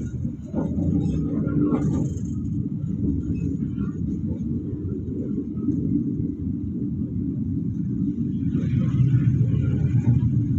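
Passenger train running, heard from inside the coach: a steady low rumble of wheels on the rails, with a short rise of higher hiss about nine seconds in.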